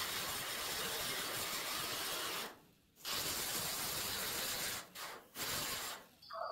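Small right-angle air grinder with a disc grinding down the tops of plug welds on a steel quarter panel. It runs for about two and a half seconds, stops briefly, runs again for about two seconds, then comes in short spurts near the end.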